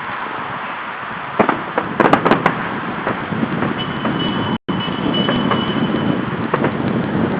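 Fireworks going off: several sharp bangs, bunched together about one and a half to two and a half seconds in, over a steady rush of wind and city traffic noise. The sound cuts out for an instant just after the middle.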